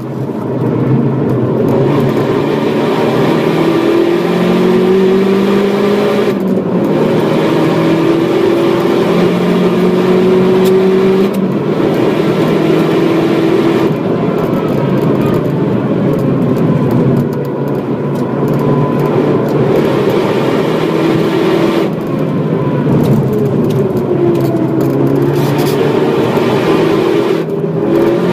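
Opel Astra H OPC's turbocharged 2.0-litre four-cylinder engine heard from inside the cabin, pulling hard with its pitch climbing in stretches, broken by several brief dips as the driver shifts up or lifts. Later the car slows for a corner, with tyre and wind noise underneath throughout.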